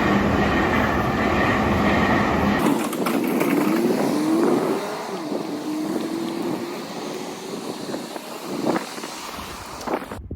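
A Meitetsu electric train running past a railroad crossing: loud wheel-on-rail running noise, with a motor whine that rises and then holds steady, and a few knocks from the wheels. The sound cuts off abruptly just before the end.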